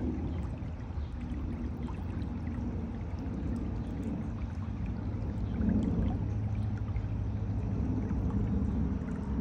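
Floodwater pouring out of a concrete culvert and running down a narrow grassy channel: a steady rush of water that swells a little about halfway through.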